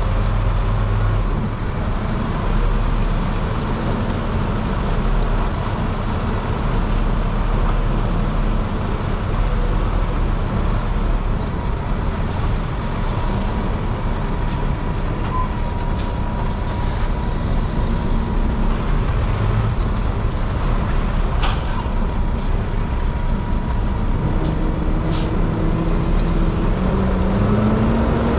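Semi-truck diesel engine running at low speed as the tractor-trailer is maneuvered, a steady hum with a few brief sharp noises in the second half; the engine pitch rises near the end.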